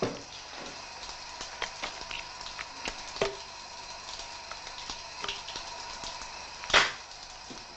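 A double-barrelled shotgun being handled: scattered small clicks and knocks, then one sharp, loud clack near the end, over a steady hiss.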